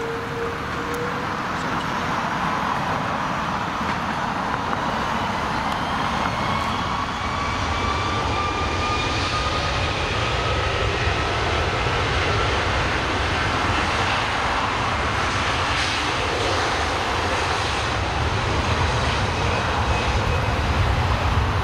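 Twin jet engines of a Turkish Airlines Airbus A330 on the runway: a steady roar with a whine that rises slowly in pitch, growing a little louder and deeper in rumble toward the end.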